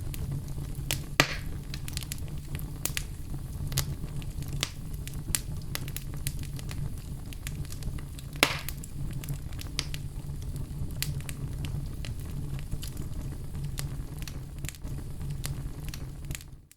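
Fireplace fire burning with a steady low rumble and scattered sharp crackles and pops, two of them louder, about a second in and past the middle; it fades out at the very end.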